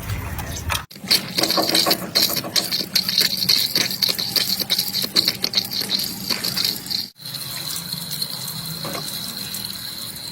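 Water gushing from a tap, with rattling, broken by two short dropouts, about a second in and about seven seconds in.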